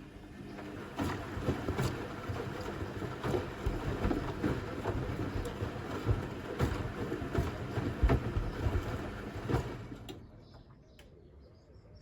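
Zanussi ZWF12070W front-loading washing machine's drum turning during the wash, water sloshing, with irregular knocks from the load tumbling; the drum stops about ten seconds in, the pause of a wash cycle's turn-and-rest rhythm.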